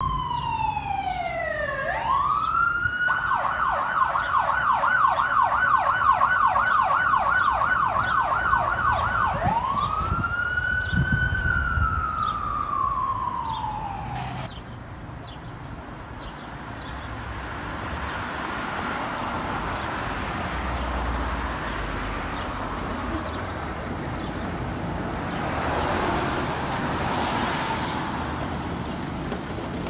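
An emergency vehicle's electronic siren. It winds down in a wail, switches to a fast yelp of about three sweeps a second for some six seconds, then makes one more slow rise and fall and cuts off abruptly about halfway through. Steady street and traffic noise follows.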